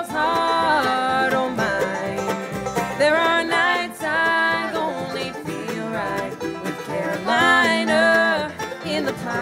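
Acoustic bluegrass band playing an instrumental break between sung verses: banjo, fiddle, mandolin, acoustic guitars and upright bass, with a sliding, bending lead melody over a steady rhythm.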